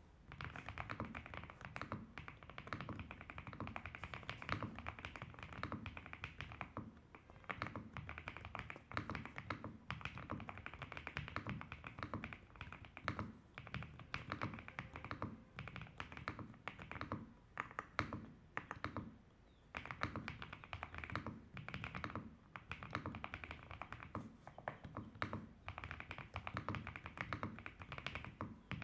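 Continuous typing on a Riccks RS8 mechanical keyboard with KTT Strawberry V2 linear switches and Ghost Judge Astronaut keycaps. It makes a fast, steady stream of keystrokes with a couple of short breaks.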